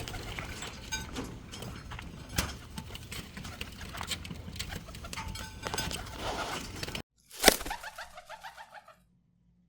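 Pigeons cooing amid a busy stir of scattered clicks and flutters. It cuts off abruptly about seven seconds in. Then comes one loud sharp crack and a short, fast pulsing run of sound, and the sound ends about two seconds before the close.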